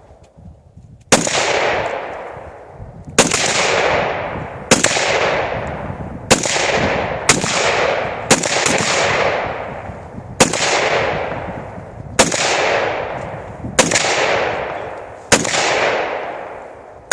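A gun firing about eleven single shots, one every second or two. Each sharp crack is followed by a long rolling echo that fades before the next shot.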